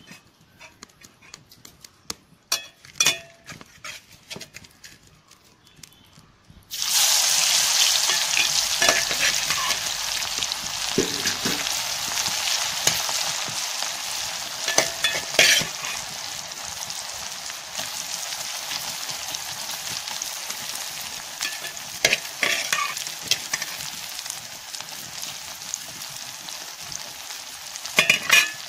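Masala-coated jackfruit pieces deep-frying in hot oil in a kadai: a few light clicks, then a loud sizzle starts suddenly about seven seconds in as the pieces go into the oil, settling into a steady sizzle that slowly gets quieter. The clack and scrape of a spoon stirring the pieces comes through at times.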